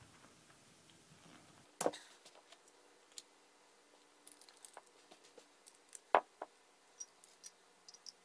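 Small metal clicks and taps as the bolt of a Benelli Super Black Eagle 3 shotgun is taken apart by hand, its firing pin, spring and pins pulled out and set down. Two sharper clicks stand out, about two seconds in and about six seconds in.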